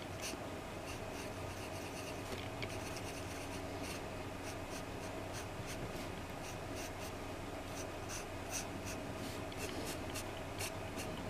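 Pencil lead scratching on paper in short sketching strokes, the strokes coming quicker and closer together in the last few seconds, over a faint steady hum.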